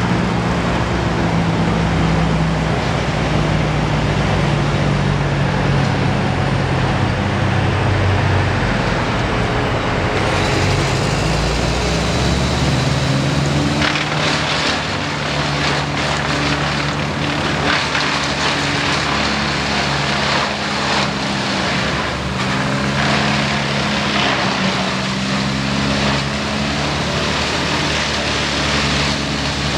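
Diesel engines of a towed wood chipper and a Bobcat S160 skid-steer loader running steadily. About halfway through, a dense, irregular crackle sets in as tree branches are fed through the chipper.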